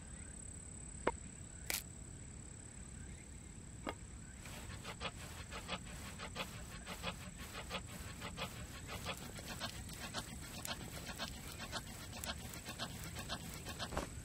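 Fire made by friction: a wooden stick rubbed back and forth against a wooden board in short rhythmic scraping strokes, starting a few seconds in and growing quicker, after a few single knocks, over a faint steady high tone.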